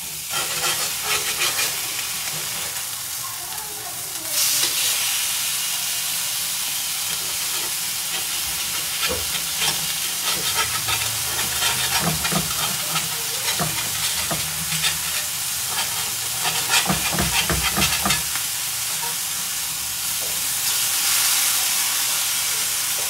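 Marinated chicken steaks sizzling on a hot cast iron grill pan, with metal tongs clicking and scraping against the pan as the pieces are turned. The sizzle grows louder about four seconds in.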